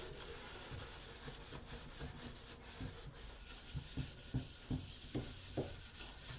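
Scrubbing a plastic fridge case by hand: irregular rubbing strokes, a few a second.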